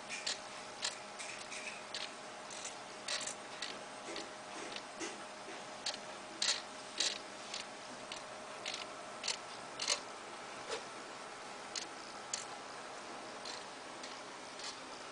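Small hobby servo motors jogging in short steps, making brief irregular clicks and buzzes, one or two a second at uneven intervals, with a faint steady whine underneath.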